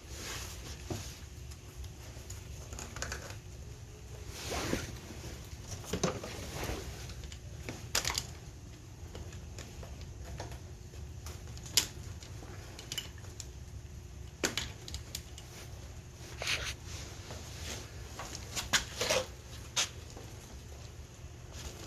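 Intermittent clicks, taps and short rustles of hands, tools and parts being handled while working on an ATV, over a low steady hum.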